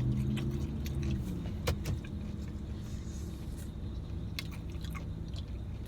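Car cabin noise while driving: a steady low road rumble, with an engine hum that fades out in the first second or two. Scattered light clicks and rattles, the sharpest about two seconds in.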